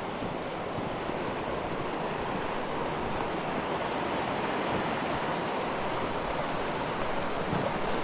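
Fast-flowing river rushing steadily over rocks, swollen with spring runoff.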